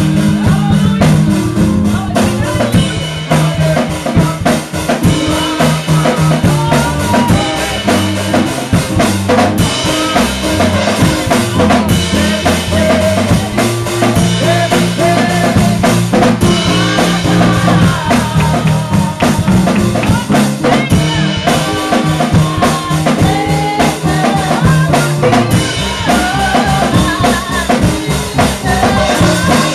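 Live gospel music from a church band: a drum kit keeping a steady beat with snare and cymbal hits over a sustained bass line, and a woman singing into a microphone over it.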